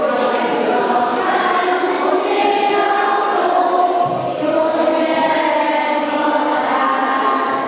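A group of children singing a song together in chorus.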